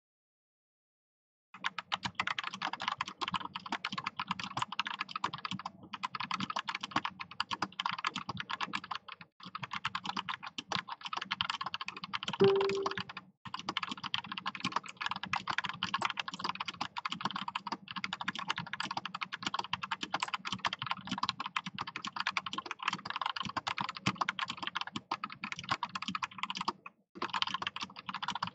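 Fast, continuous typing on an Anne Pro RGB mechanical keyboard with tactile Gateron Brown switches: a dense stream of key clacks, with a few brief pauses and one louder knock about halfway through. The typing starts after a second or two of silence.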